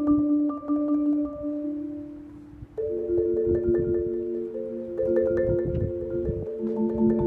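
Concert marimba played with four yarn mallets: rolled notes fade away about two and a half seconds in, then new rolled chords begin and carry on. Low wind rumble on the microphone sits under the playing.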